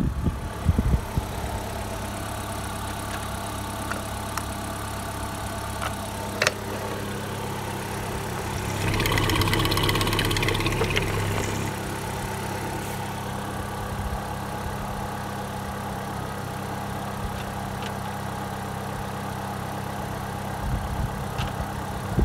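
Opel Astra G's 1.6-litre 16-valve X16XEL Ecotec four-cylinder engine idling steadily. It runs louder for about three seconds near the middle, with a single short knock a little before that.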